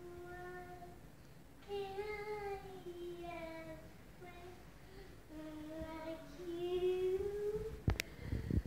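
A young child singing a wordless tune in drawn-out, wavering notes, with a few sharp knocks near the end.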